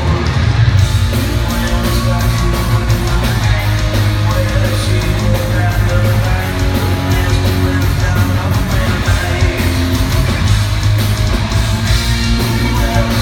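Heavy metal band playing live: distorted electric guitars over bass and drums, loud and continuous.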